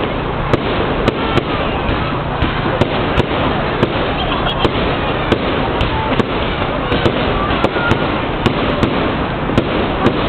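Fireworks display: sharp bangs and cracks going off irregularly, two or three a second, over a dense steady din.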